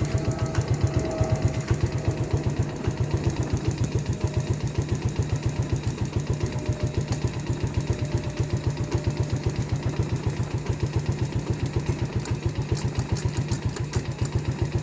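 A vehicle engine idling steadily, with a rapid, even beat.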